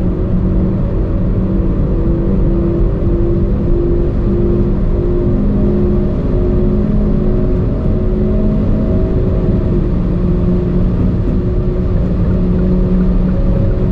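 Car at full throttle at high speed, around 190 to 230 km/h: the engine pulling steadily in a high gear under a constant rush of wind and road noise.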